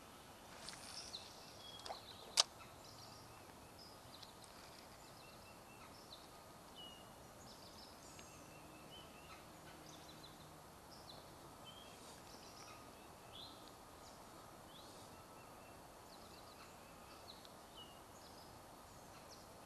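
Quiet outdoor background with faint, scattered short chirping calls, and a single sharp click about two seconds in.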